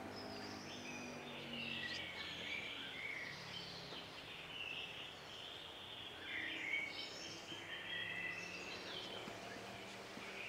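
Woodland songbirds singing: a steady run of short, varied high phrases with jumps in pitch, one after another.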